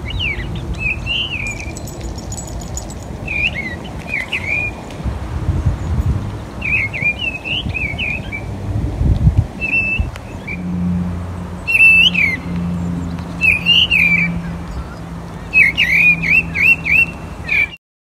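A songbird singing from the top of a tree: short phrases of a few sweeping notes every two seconds or so, with a quicker run of repeated notes near the end.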